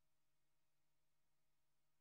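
Near silence: only a faint steady hiss with a low hum.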